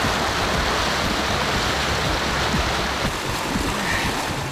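Steady rush of water as paddles dig into the water beside an inflatable canoe.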